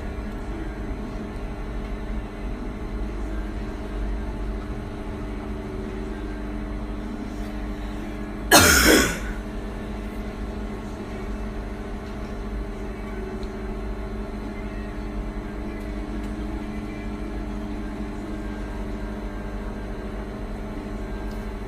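Microwave oven running on a one-minute heating cycle, a steady low hum. About eight and a half seconds in, one short, loud burst cuts across it.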